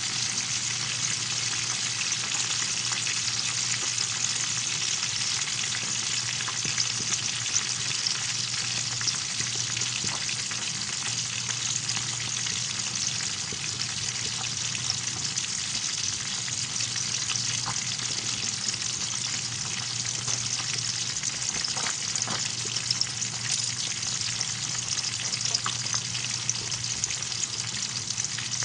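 Milkfish frying in hot oil in a pan: a steady sizzle with scattered pops and crackles, over a steady low hum.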